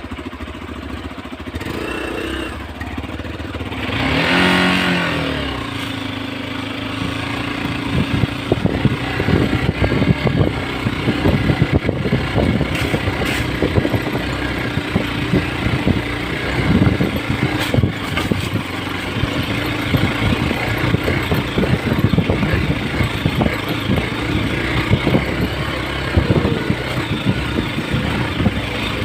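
Hero XPulse 200's single-cylinder engine revving up and back down about four seconds in, then running steadily under way. Frequent knocks and rattles run through it, from the bike working over a rough off-road track.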